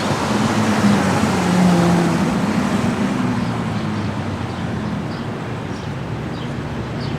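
A car engine running as it drives by in street traffic. Its low note is strongest and dips slightly a second or two in, then fades into steady traffic noise.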